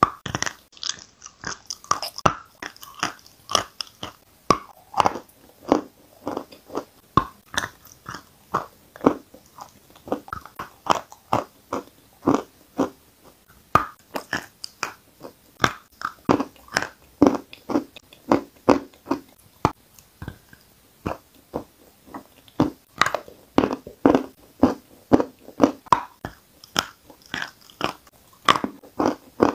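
Sticks of white chalk being bitten and chewed: a steady run of sharp, dry crunches, about two a second.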